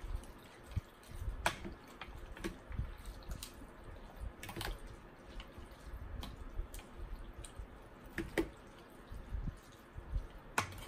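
Fork and spoon tossing rice noodles and raw vegetables in curry broth in a glass bowl: wet squishing and stirring, with a few sharp clinks of the utensils against the glass.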